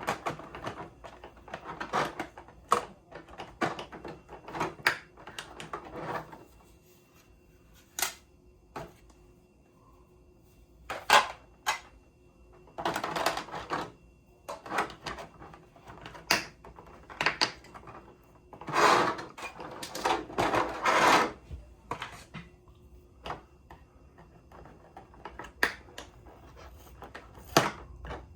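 Clicks, taps and crinkling rustles of model kit parts being taken out of their plastic packaging trays, in several bursts separated by quieter gaps.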